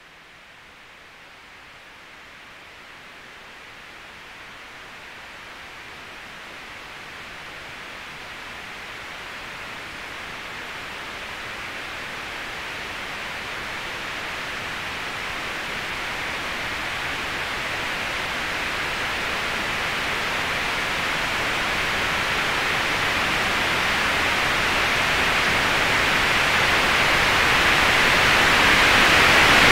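Static-like electronic hiss swelling steadily and evenly from faint to very loud, brightest in the upper middle range.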